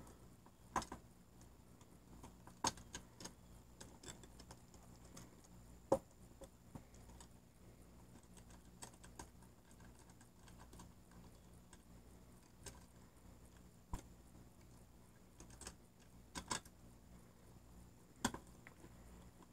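Faint, scattered small clicks and taps of wire ends and metal terminal parts being handled as wires are fitted into an electrical plug's terminals, with a few sharper ticks.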